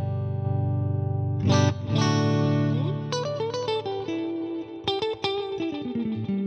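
Electric guitar played clean through a Fractal Axe-Fx III's Deluxe Verb amp model. A chord rings out and is struck again about 1.5 s in. From about 3 s in it gives way to a single-note lead line with string bends, on the clean lead scene that has a solo boost.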